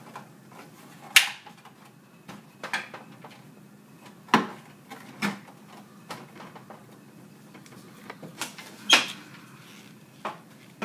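Plastic bottles being handled on a countertop: about half a dozen sharp clicks and knocks, a second or two apart.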